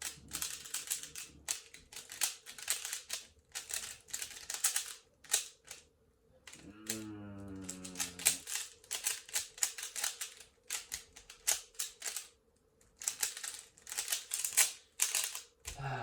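Cyclone Boys Feiwu 3x3 speedcube being turned fast during a timed solve: rapid, irregular clicking of the plastic layers, with two short pauses. A short low tone that falls in pitch comes about seven seconds in.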